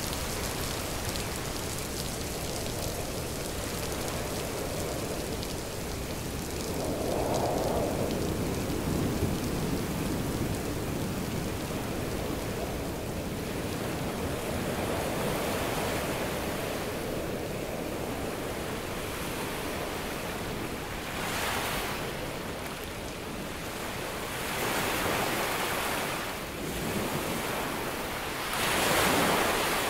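Steady hiss of rain and wind mixed with ocean surf, waves swelling and washing in several times, the strongest near the end.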